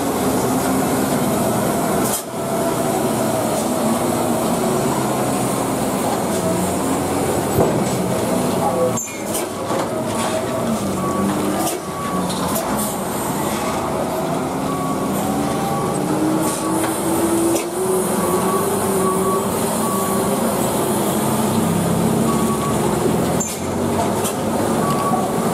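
Heavy diesel truck engines labouring uphill in low gear, their drone rising and falling in pitch as the trucks pull round a steep hairpin. The sound changes abruptly several times as one truck gives way to the next.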